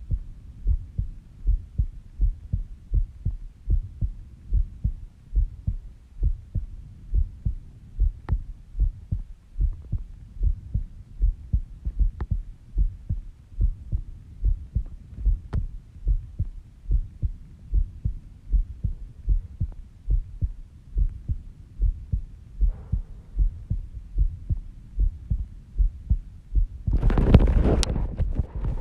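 A person's heartbeat heard up close during sleep: a steady, even rhythm of low thumps, slow and resting at about 70 beats a minute. Near the end a loud rushing noise covers it.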